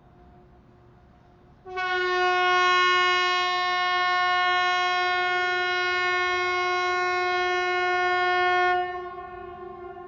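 Swedish outdoor air raid siren sounding one steady, unwavering tone: a fainter tone at first, then a near siren cuts in suddenly about two seconds in, holds level for about seven seconds and drops away near the end, leaving the fainter tone sounding on.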